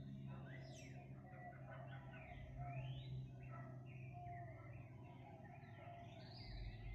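Several birds singing and chirping at once: quick overlapping rising and falling notes, over a faint low steady hum.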